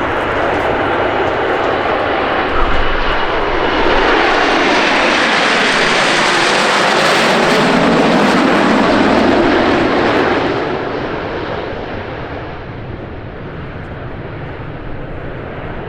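Fixed-wing aircraft's engines passing by, the noise swelling to its loudest in the middle and fading away after about ten seconds.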